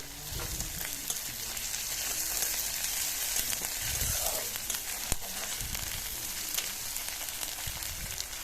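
Chopped onion, green chillies, garlic and grated ginger sizzling steadily in hot oil in a kadai, stirred with a spatula that knocks lightly on the pan a few times.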